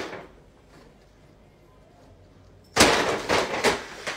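Paper gift bag crackling and rustling loudly in a quick run of sharp crinkles for about a second, near the end, as a cat dives into it and knocks it over.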